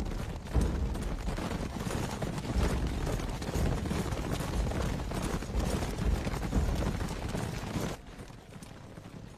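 Many horses' hooves clattering at a gallop on stone paving, a dense run of hoofbeats that drops away suddenly about eight seconds in.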